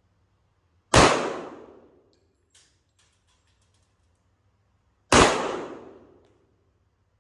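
Two shots from a Sig Sauer 1911 Spartan .45 ACP pistol, about four seconds apart, each a sharp crack with an echoing tail of about a second. A few faint clicks come between the shots.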